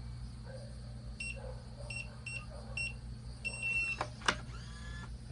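Digital door lock keypad beeping as a code is entered: about five short high beeps, then a longer confirmation tone. Two sharp clicks follow as the lock releases and opens.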